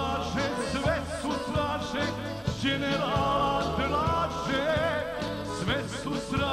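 Live band playing a Serbian song, with a steady bass and drum beat under a wavering lead melody line.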